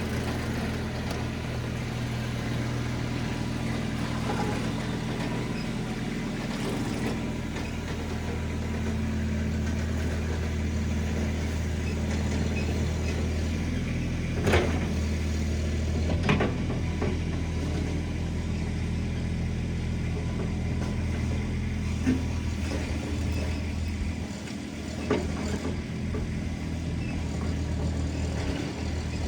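RIPPA RS06 mini skid steer's engine running steadily. A few sharp knocks stand out about halfway through and again later.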